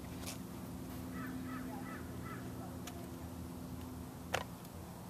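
A bird gives four short, harsh calls in quick succession over a steady low hum. A sharp click near the end is the loudest sound.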